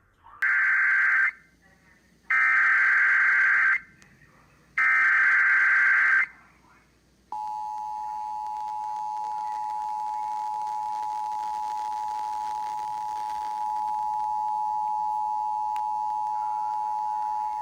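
Emergency Alert System signal on an FM radio broadcast: three short bursts of the SAME digital header, a harsh warbling screech, with brief gaps between them, then about seven seconds in the steady two-tone attention signal starts and holds. This header-and-tone sequence opens an EAS Required Monthly Test.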